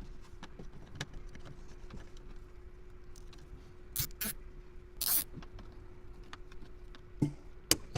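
Small clicks and rustling of hands handling plastic interior trim and wiring, with two brief louder rustles about four and five seconds in, over a faint steady hum.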